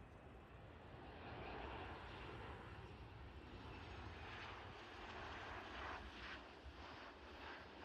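Faint, steady jet engine noise of a twin-engine airliner landing, swelling about a second in as it descends over the runway and touches down.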